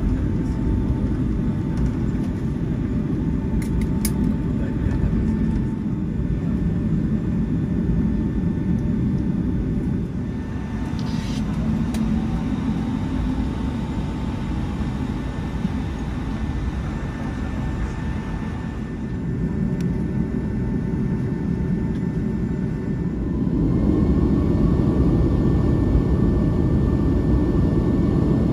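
Cabin noise of a Boeing 757-200 taxiing: a steady low rumble of its Pratt & Whitney PW2037 engines and airframe, with a thin steady whine over it. The rumble grows louder near the end.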